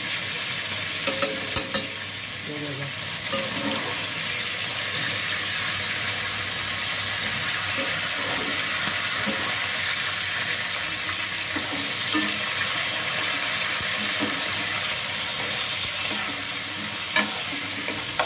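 Onions and spices frying in hot oil in an aluminium pot, with a steady sizzle. A few sharp metal clinks sound about a second in and near the end, as a spoon works in the pot.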